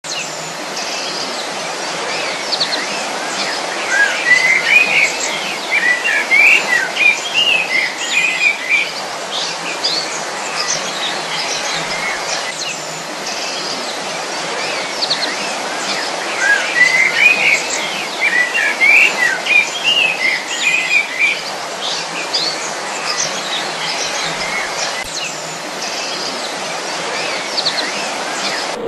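Birds chirping and singing over a steady background hiss. Busy bursts of song come about four seconds in and again about twelve seconds later, with the same stretch seeming to come round again.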